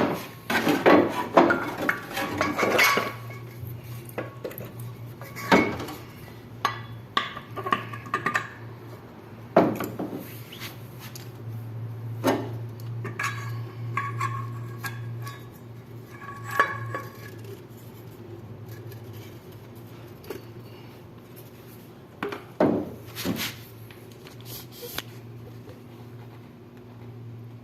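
Metal parts of a window AC fan motor clinking and knocking as the rotor, fitted with new bearings, is put back into the housing and the end cover fitted. Scattered knocks and clinks, some ringing briefly, busiest in the first few seconds and again near the end, over a steady low hum.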